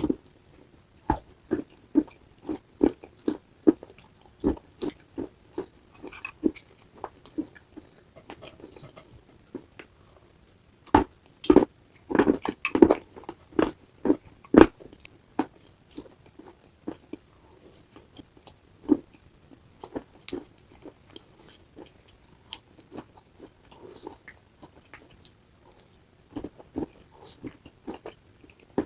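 Close-miked biting and chewing of wet clay paste: a run of sharp crunches, about two a second at first, with the loudest cluster about halfway through, then slower, softer chewing.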